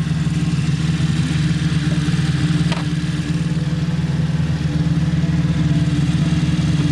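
Motorcycle engine idling steadily at a constant pitch.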